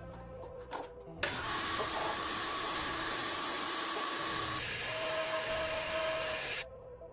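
Machine-tool noise: a loud steady hiss with a high, steady whine, starting about a second in, changing pitch midway and cutting off abruptly near the end.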